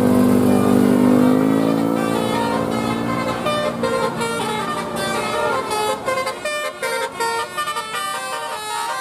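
A bus's Basuri telolet horn playing a quick melody of short stepped notes. It opens with a loud, low held tone that bends upward about a second in and fades, and the notes turn choppier in the second half.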